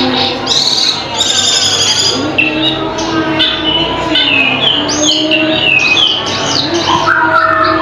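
Cucak keling singing loudly in a fast, varied run of whistles, quick falling chirps and harsher notes, with sliding lower tones beneath.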